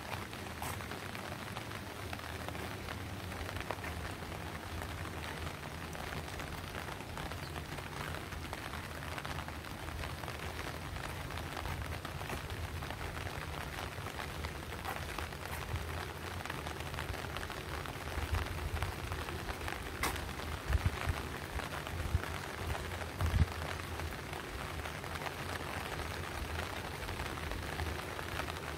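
Steady rain falling, an even patter with a low rumble underneath. A few dull knocks come about three-quarters of the way through.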